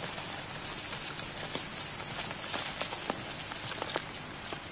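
A steady high-pitched hiss with faint scattered ticks, which cuts off abruptly about three quarters of the way through.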